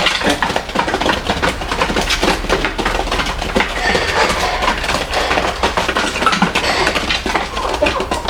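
Rapid, irregular tapping and clicking, with a few short high calls mixed in.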